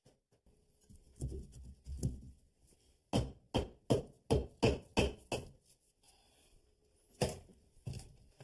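Sharp knocks on wood framing in the wall: a quick run of about eight, roughly three a second, then two more near the end, as the cut stud is knocked loose.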